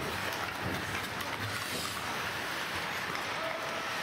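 Ice hockey game sound at rink level: a steady hiss of skates scraping and carving the ice, with no loud stick or puck hits.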